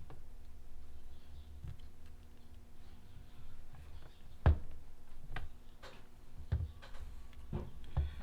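Scattered small clicks and taps of small hard parts being handled as ball bearings are pushed into an RC truck's plastic steering blocks. One sharper knock comes about four and a half seconds in.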